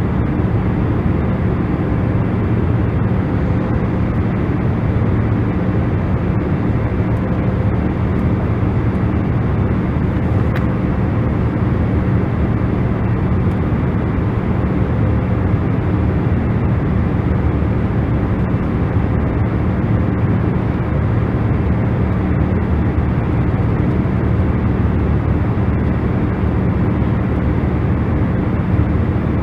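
Steady, unchanging 'white noise' for sleep: an even low noise with faint humming tones underneath, with no changes or separate sounds.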